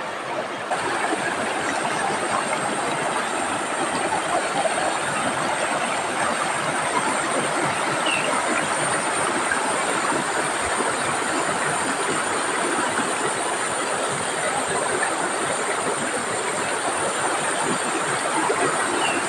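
Shallow rocky river rushing over stones in small cascades: a steady, even rush of water.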